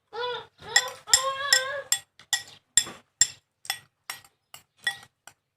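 A wordless vocal reaction, a short wavering cry and then a longer drawn-out one, like a squeal at very sour food. This is followed by crisp clicking mouth sounds about twice a second as raw kamias fruit is chewed.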